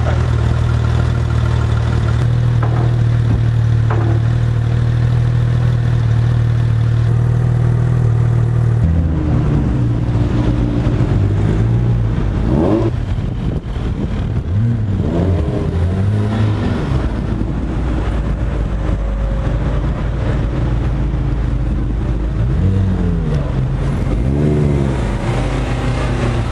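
Porsche 911 GT3's flat-six engine idling steadily, then, about nine seconds in, revved hard several times, its pitch sweeping sharply up and down as the car drives off.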